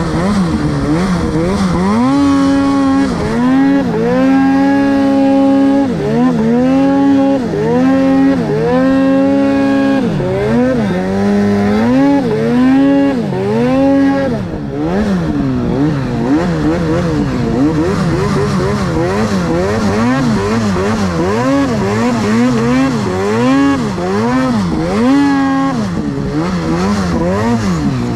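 Arctic Cat snowmobile engine being ridden through deep powder, revving up and down over and over: held high for a second or two at a time, dropping between, with quicker throttle blips through the middle part.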